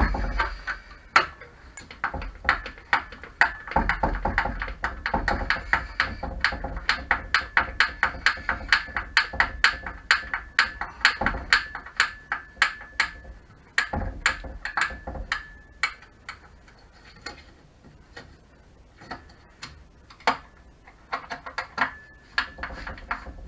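T20 Torx screwdriver being turned to back screws out of a Tacx Flux trainer's plastic frame, giving quick, regular clicking at about four to five clicks a second. The clicking thins to a few scattered clicks about two-thirds of the way in, then picks up again near the end.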